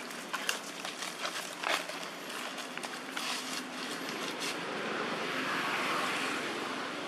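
Scattered crackling clicks for the first few seconds, then the noise of a passing road vehicle swells in, loudest about six seconds in, and eases off slightly.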